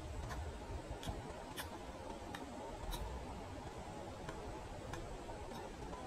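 Male pileated woodpecker pecking at a pressure-treated wooden 4x4 post: sharp, irregular taps of its bill on the wood, about eight in a few seconds. It is digging out insect larvae tunnelling in the post.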